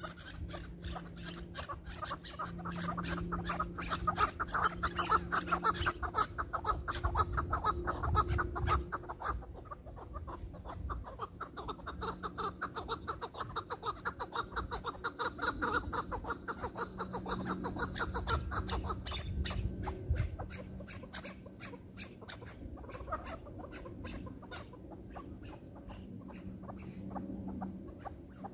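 Chukar partridges calling: a long run of rapid clucking notes, several a second, hardly pausing.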